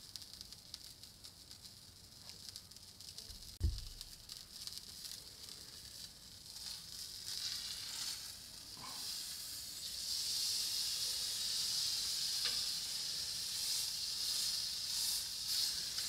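Entrecote steak searing on a hot cast-iron griddle plate: a steady sizzle that grows louder from about halfway through, once the steak has been turned with metal tongs. A single brief low thump about four seconds in.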